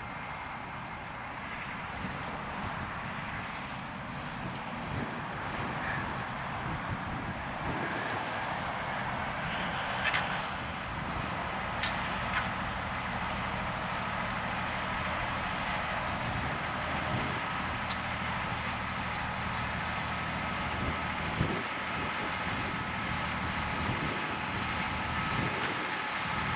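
John Deere 7280R tractor's six-cylinder diesel engine running steadily under load while pulling a plough. The sound grows a little louder early on, and a couple of short sharp clicks come near the middle.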